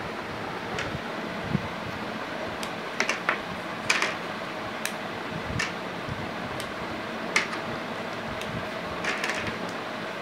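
Hard plastic flower blocks clicking and snapping together as they are fitted and pulled apart by hand: irregular sharp clicks, sometimes in quick pairs, over a steady background hiss.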